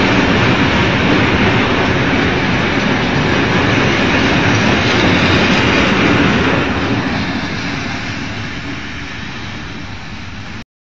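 Freight train's hopper wagons rolling past on the rails at close range. The sound fades as the last wagons go by and the train moves away, then cuts off suddenly near the end.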